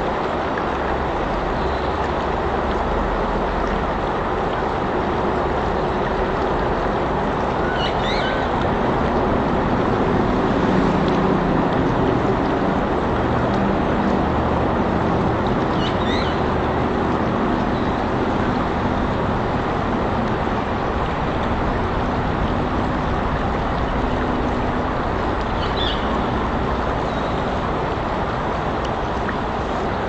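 Steady background noise of vehicles, swelling slightly about a third of the way in, with a low hum through the middle. Short high bird chirps come through three times.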